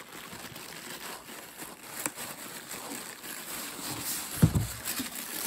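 Cardboard box and foam packing rustling and scraping as a boxed amplifier is worked out of its carton, with a sharp click about two seconds in and a heavy thump about four seconds in, followed by a few lighter knocks.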